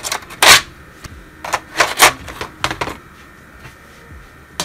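Wooden colored pencils clicking against each other and their metal tin as they are handled: a handful of sharp clacks over the first three seconds, the loudest about half a second in.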